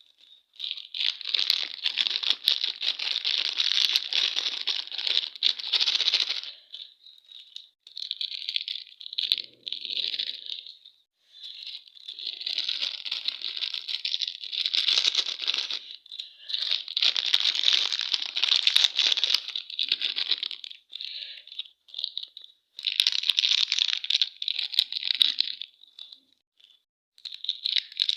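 Plastic and foil candy wrappers being crinkled and torn open by hand, in repeated bursts a few seconds long with short pauses between.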